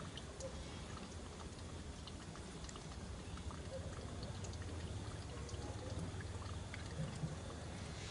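Steady outdoor background noise: a low rumble under a faint hiss, dotted with scattered faint ticks and clicks, and two soft low blips near the end.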